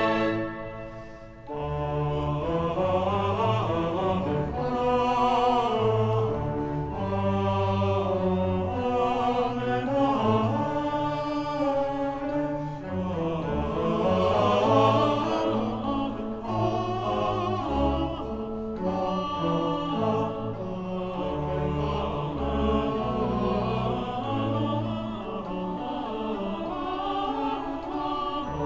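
Choir singing with a symphony orchestra in Baroque classical music. A held chord dies away and a new passage with a moving bass line begins about a second and a half in.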